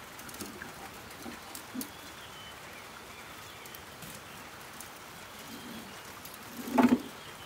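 Small wood fire crackling in the firebox of a metal wood-burning stove while sticks are handled and pushed in, with soft knocks of wood. A louder clatter of sticks near the end.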